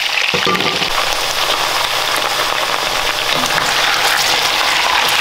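Cubed cassava and sweet potato sizzling steadily as they fry in hot coconut oil in an enamelled pot, at the browning stage.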